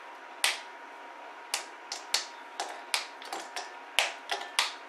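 Bar of dark chocolate being snapped into pieces by hand, the pieces dropping into a bowl: about a dozen sharp snaps and clicks at uneven intervals.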